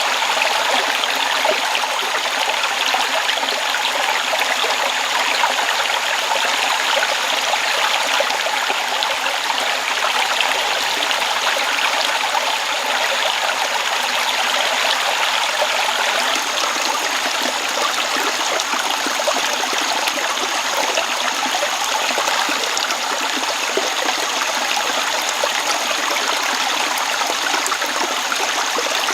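A stream flowing steadily, an even, continuous rush of water, with a faint steady high-pitched tone running above it.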